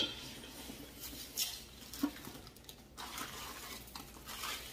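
Faint rustling and scuffing of packaging as a foam insert is lifted from a box and a plastic-wrapped glass canister is handled, in a few short soft bursts.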